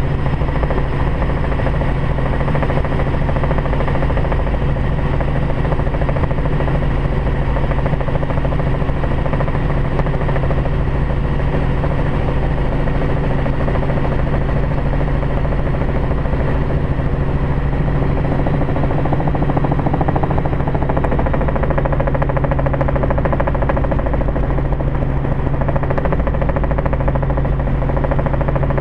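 Small plane's piston engine and propeller running steadily in flight, heard from inside the cockpit as a constant low hum with overtones and no change in pitch.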